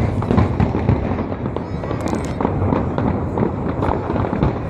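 Aerial fireworks bursting in quick succession, the booms overlapping with crackling and popping.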